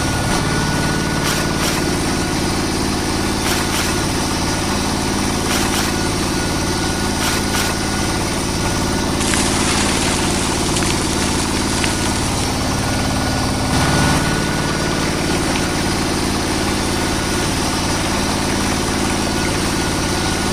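An engine running steadily at idle with an even hum. Near the middle, a hiss joins it for about three seconds.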